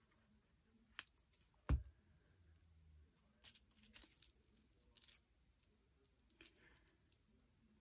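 Faint rustling and soft clicks of folded book-page paper being handled and pressed flat by hand, with a single dull thump just under two seconds in.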